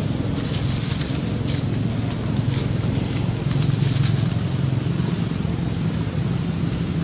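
A steady low rumble, with faint short crackles and rustles above it.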